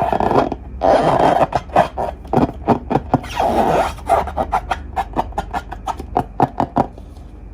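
Slime being worked by hand: a fast run of sticky clicks and pops with a few longer crackling stretches, stopping about seven seconds in.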